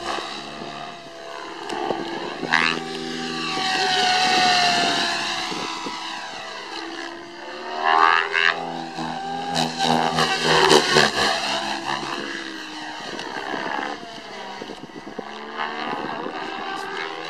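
Radio-controlled helicopter flying 3D aerobatics: a steady whine from its motor and rotor that slides up and down in pitch and loudness as it manoeuvres, loudest from about 8 to 11 seconds in.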